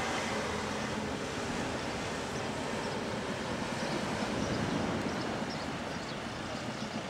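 Steady outdoor street noise of a seafront road: the hum of traffic with wind on the microphone, swelling a little past halfway.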